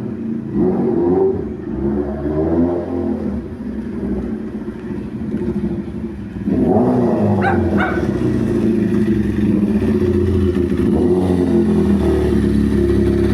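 Loud vehicle engine revved in repeated blips, then held at high revs from about six and a half seconds in.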